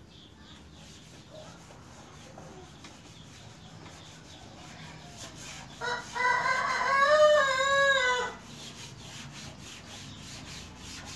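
Hand-sanding of a Vespa PTS 100 Special's steel body panel, a steady rubbing in repeated strokes. About six seconds in, a rooster crows once, loudly, for a little over two seconds.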